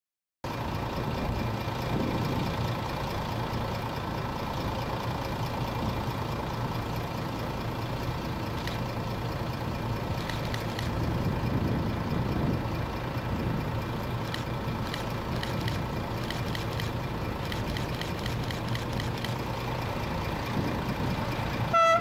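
Diesel engine of an ALn 772 railcar running steadily with a low drone as the railcar crosses the countryside, starting about half a second in. Just before the end the railcar gives a short horn blast.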